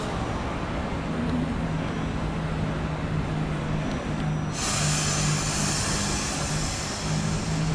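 Trenitalia ETR 324 Jazz electric multiple unit approaching, with a steady low electric hum; a loud hiss sets in suddenly about halfway through and holds.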